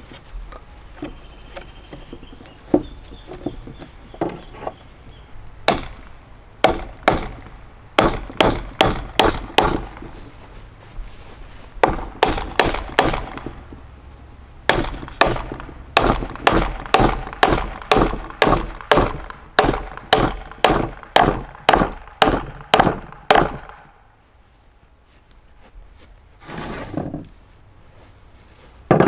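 Hammer striking a chisel driven into the end grain of a log, chipping out wood to hollow it. The blows come in runs of about two a second with short pauses, each a sharp crack with a metallic ring. A few lighter taps come before the first run.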